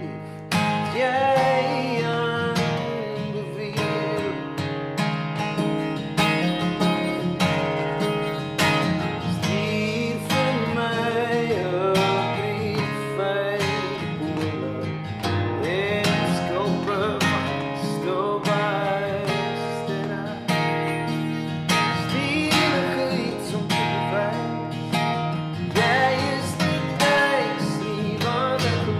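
Music: a song on strummed acoustic guitar, with a melody line over the chords.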